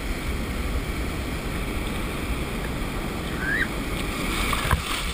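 Surf whitewater washing and churning steadily around the waders, with wind buffeting the microphone as a low rumble; a brief knock near the end.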